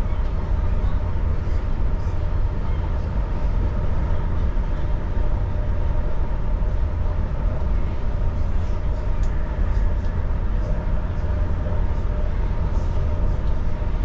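Cabin noise inside a regional passenger train running at speed: a steady low rumble from the running gear on the track, with a faint steady hum above it.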